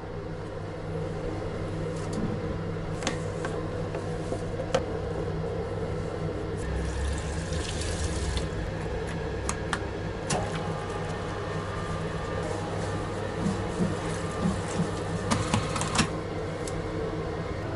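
Spiral dough mixer running with a steady motor hum as it mixes dough. About seven seconds in, water is poured into the steel bowl, and near the end come a few sharp clicks.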